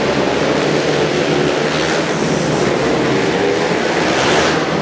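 Speedway racing motorcycles' 500 cc single-cylinder engines running hard at high revs as the bikes race round the dirt oval.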